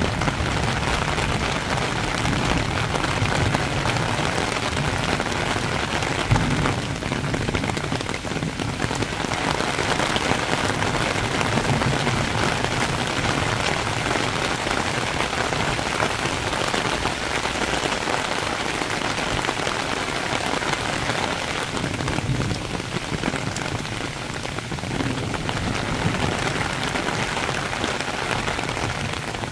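Heavy rain shower pouring steadily onto leaves and a paved path, a dense, even hiss.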